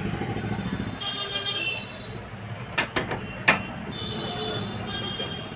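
Road traffic: a motor vehicle engine running with a pulsing rumble that fades after about a second, and short horn toots. Two sharp clicks come near the middle.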